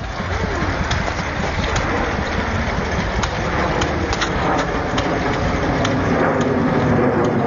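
Jet noise from the Red Arrows' formation of BAE Hawk jets flying overhead: a steady rushing engine sound that grows slightly louder toward the end.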